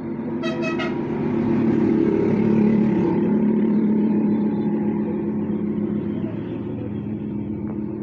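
Motor vehicle engine running close by, swelling up and then slowly easing off as it passes, with a short horn toot about half a second in.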